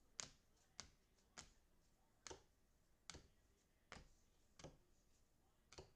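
A faint series of about eight short, sharp clicks, spaced unevenly roughly every half second to a second.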